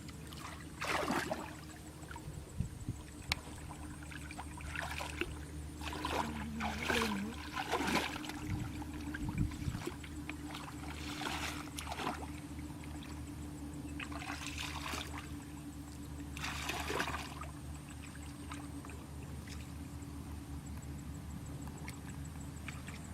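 Water splashing and trickling in a series of short splashes, over a low steady hum.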